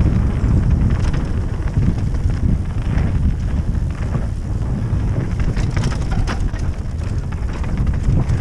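Wind buffeting the microphone over the rumble of a mountain bike running fast down a dirt trail, with scattered knocks and clattering as it goes over bumps.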